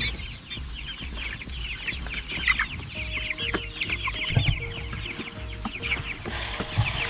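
A flock of chickens calling continuously, many short high falling peeps overlapping, as they crowd round a feeder. A couple of low thumps come about midway and near the end.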